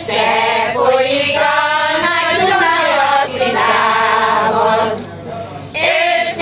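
Women's choir singing a Hungarian folk song together, with a short pause for breath about five seconds in.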